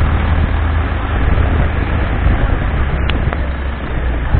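Motorboat engine running steadily, with a constant low hum under a noisy rush.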